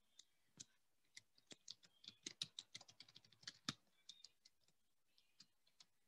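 Faint computer keyboard typing: an irregular run of key clicks, quickest in the middle, that thins out and stops about five seconds in.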